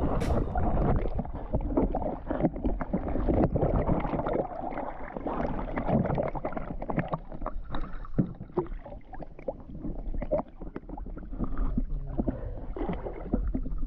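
Water noise heard through a camera carried by a diver: bubbles and water churning, then splashing and sloshing as the diver surfaces beside a boat.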